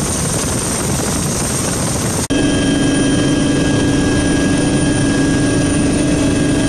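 Helicopter engine and rotor noise, heard loud and close as from aboard the helicopter. About two seconds in the sound cuts abruptly to a steadier recording in which a hum with several steady whining tones stands out.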